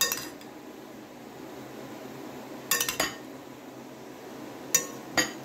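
A spoon clinking against a ceramic dinner plate while soy sauce is spooned onto rice: short ringing clinks, one at the start, a few together around three seconds in, and two near the end.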